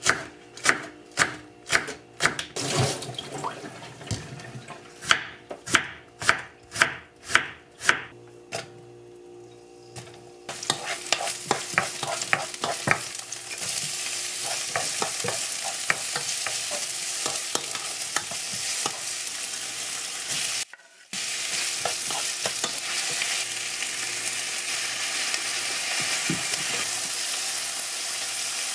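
A kitchen knife chops green onion on a wooden cutting board, striking about twice a second with a short pause. Then sliced onion, green onion and later fish cake strips sizzle steadily in a frying pan, stirred with a wooden spoon that scrapes now and then.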